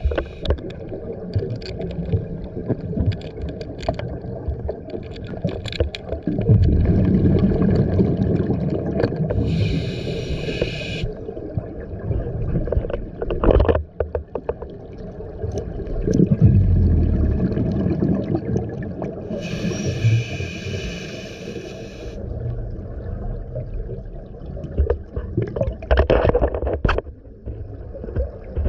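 A scuba diver breathing through a regulator underwater: a hiss on each inhale twice, and a bubbling rumble from the exhaled bubbles, slow and spaced several seconds apart. There are a few sharp clicks between breaths.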